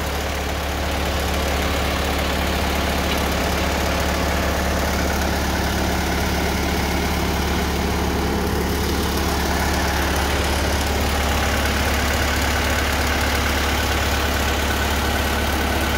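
Engine of a Vermeer BC1000XL brush chipper running steadily with no wood being fed, a constant low hum. A faint high whine joins about two-thirds of the way through.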